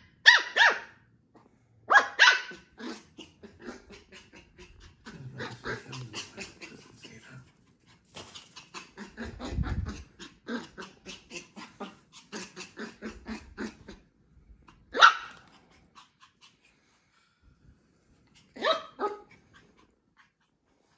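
Yorkie puppy barking in short, sharp, high-pitched barks: a few near the start, one about fifteen seconds in and a couple near the end. Between the barks comes a long run of quick, quieter clicks and scuffles.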